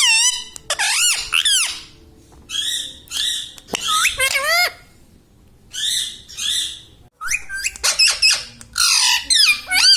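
Pet ringneck parrot squawking in a series of short, loud calls that swoop up and down in pitch, some in quick pairs, coming faster in the last few seconds.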